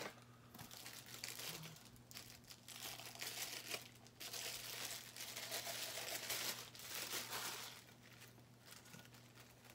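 Clear plastic bag crinkling and rustling in the hands as a cook-set part is unwrapped from it, in irregular bursts that die down about eight seconds in.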